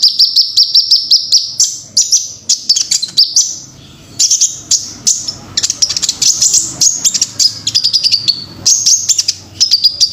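Kolibri ninja sunbird song: rapid, high-pitched chirps and fast trills, with a brief pause about four seconds in.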